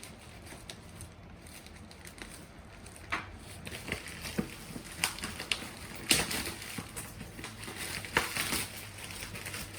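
Packaging being worked open by hand: quiet at first, then irregular crackling and rustling from about three seconds in, with the sharpest crackles near the middle and toward the end.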